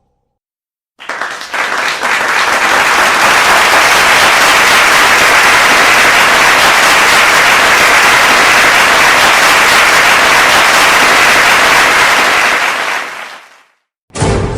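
Many hands clapping at once, like a crowd's applause: a few separate claps about a second in, swelling quickly into a loud, dense, continuous clatter that fades out near the end. As a horror sound effect it is the reply in claps to a question, meaning a great many beings are out there.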